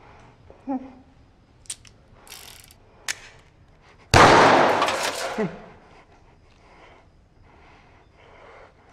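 A few small sharp knocks, then about four seconds in a sudden loud crash that fades away over about a second and a half.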